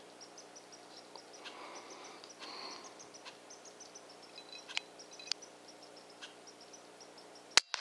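A single suppressed shot from an FX Streamline .22 PCP air rifle fitted with a DonnyFL Tanto suppressor, near the end: a short sharp crack with a second, fainter click a moment after. Before the shot there is only a faint outdoor background with a few small clicks.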